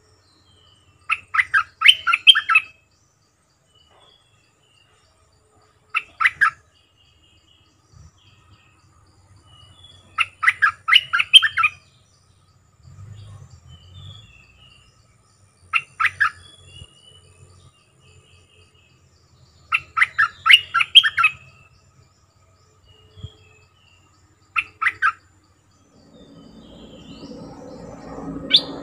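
Bulbul singing in short phrases of rapid, bubbly repeated notes, one every four to five seconds, with longer phrases alternating with brief ones. Faint chirps of other birds are heard between phrases.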